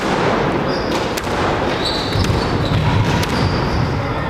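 Squash rally: the ball struck by rackets and smacking off the walls about once a second, with short high squeaks of shoes on the hardwood court floor in between.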